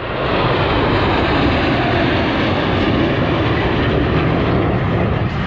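Military jet making a low pass at an air show, a loud steady engine roar.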